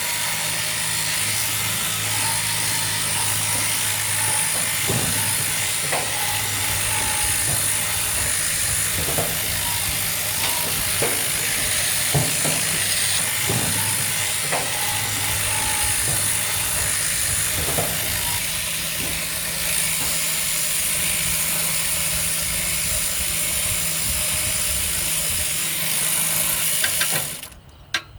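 Electric sheep-shearing handpiece running steadily as it crutches (dags) a clamped sheep, with a few scattered knocks. The handpiece cuts off about a second before the end.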